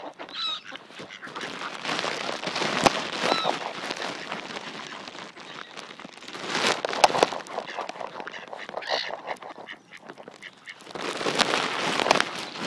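Ducks quacking a few times over loud rustling and crunching on bark mulch, which comes in three spells.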